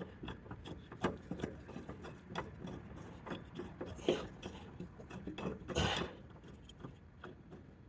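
Scattered light clicks and scrapes of metal handled by hand as a mower blade's bolt is threaded into the deck spindle, with louder scrapes about four seconds in and again near six seconds.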